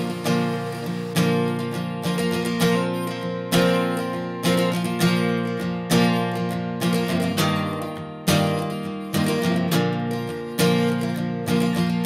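Background music: an acoustic guitar strumming chords at a steady, even pace, about one strum a second.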